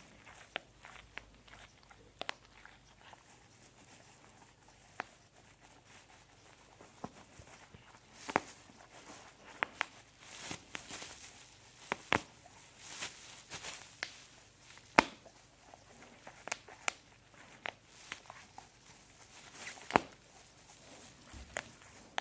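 Bubble wrap popping under a dog's bite: irregular single sharp pops, the loudest about fifteen and twenty seconds in, with rustling and crinkling of the plastic sheet between them.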